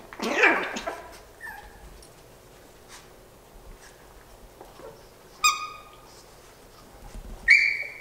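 Yorkshire terrier puppies playing, giving short high-pitched yips and whimpers: a loud, rough bark-like burst about half a second in, a brief high squeal past the middle, and a short high cry near the end.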